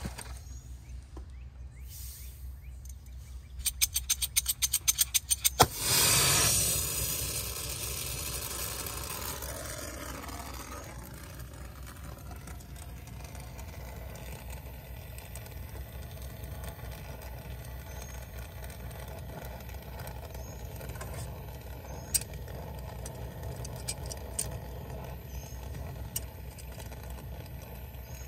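Brazing torch being lit: a quick run of igniter clicks for about two seconds, then the flame catches suddenly and burns with a steady hiss as it heats a copper fitting to unbraze the old condenser coil.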